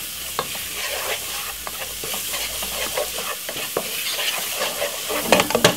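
Chopped onion, garlic and spring onion frying in oil in a nonstick pot, sizzling steadily as a wooden spoon stirs and scrapes through them. A quick run of sharp knocks comes near the end.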